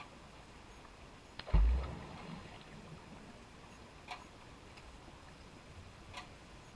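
Underwater sound picked up by a submerged trail camera in its housing: a steady hiss, a single heavy low thump about a second and a half in with a short rumble dying away, then sharp clicks about every two seconds.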